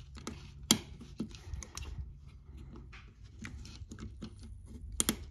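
Utility-knife blade tip clicking and scraping against the seam of an Apple AirTag's white plastic shell, prying at the small tabs that hold it together. Scattered small clicks, with a sharper one under a second in and two close together near the end.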